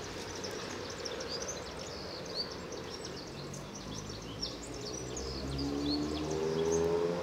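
Siberian husky giving one long, drawn-out howling vocalization that starts about five seconds in and rises slightly in pitch as it grows louder. Small birds chirp throughout.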